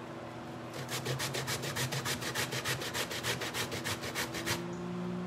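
Peeled cassava root grated by hand on a metal grater over a stainless steel bowl: quick, even rasping strokes, about six a second, starting about a second in and stopping about four and a half seconds in.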